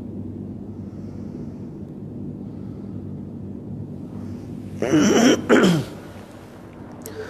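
Steady low hum under a silent pause, then a man coughing or clearing his throat twice in quick succession about five seconds in.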